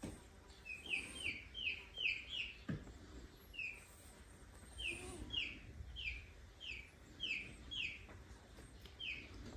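Very young kitten mewing: short, high, squeaky mews about three a second, in two runs with a few single mews between. A dull thump a little under three seconds in.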